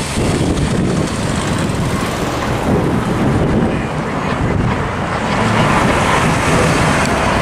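Cars driving past close by over a road crossing, with wind buffeting the microphone.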